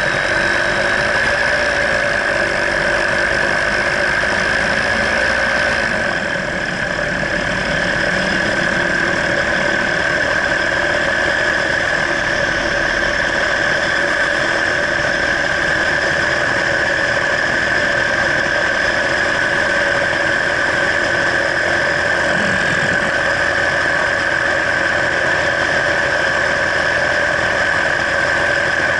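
Paramotor engine and propeller running steadily in flight, a constant loud drone with a slight brief dip in level about six seconds in.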